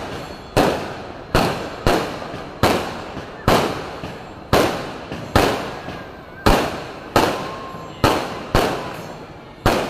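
Fireworks bursting one after another, about a dozen sharp bangs roughly a second apart, each trailing off in an echo.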